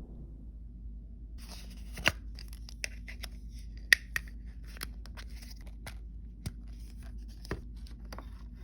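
Plastic blind-bag packaging being torn open and handled. A run of crinkling crackles and clicks begins about a second in, with two louder snaps about two and four seconds in.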